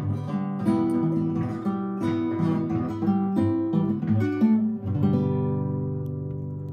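Guitar music, strummed and picked, with no singing. About five seconds in it settles on a final chord that rings on and slowly fades.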